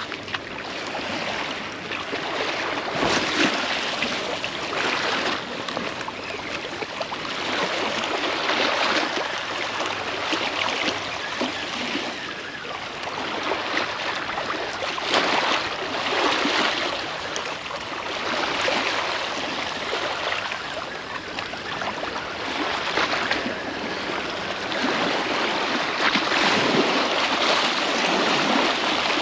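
Small sea waves washing in over a pebble and rock shoreline, a steady wash that swells and falls back every few seconds.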